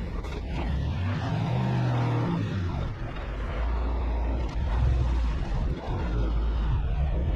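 Truck engine running with a steady low rumble, with a brief pitched hum about one and a half seconds in.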